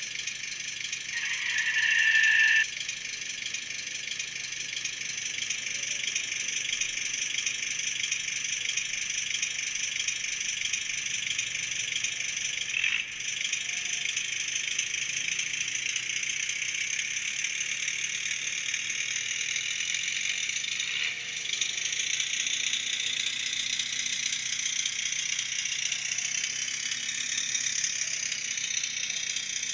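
Diesel engine sound from the ESU LokSound micro sound decoder in a BEMO HOm model of the RhB Tm 2/2 tractor, played through its tiny speaker as a thin, steady, rattling chug while the model runs. A brief, louder tone sounds about a second in, and the sound dips briefly twice.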